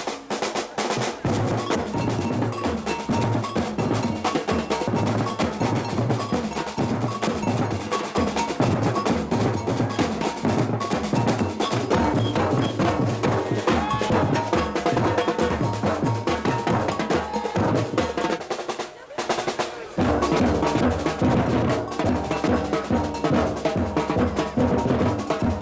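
Batucada percussion band playing a dense, driving samba rhythm of bass drums, snare drums and a bell. Near the end the drums stop for about a second, then come back in with heavier bass drums.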